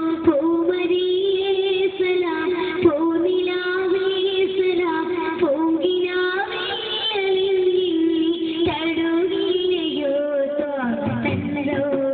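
A boy singing a song into a microphone, with musical accompaniment under his voice.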